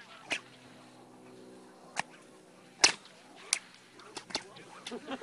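Whips cracking: sharp single cracks spaced a second or so apart, the loudest about three seconds in, then a quicker run of fainter cracks near the end.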